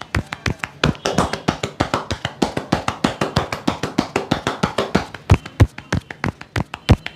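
A barber's hands striking a person's head and body in a percussive massage, in a quick, even rhythm of about five slaps a second.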